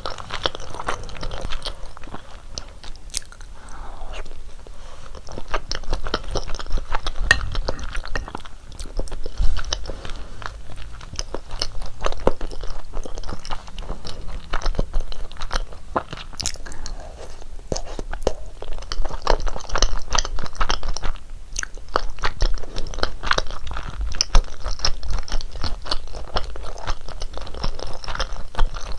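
Close-miked chewing of rosé tteokbokki: continuous sticky, wet mouth sounds with many small irregular clicks and smacks.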